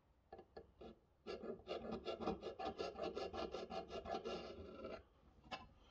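A few light taps, then a scriber scratching quickly back and forth along a line on metal bar stock, about five strokes a second for a few seconds while marking out.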